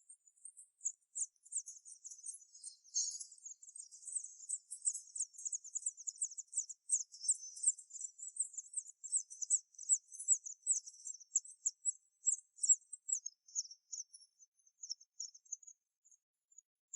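Scaly thrush nestlings begging: a dense run of rapid, very high, thin calls that builds up, then thins out and stops near the end.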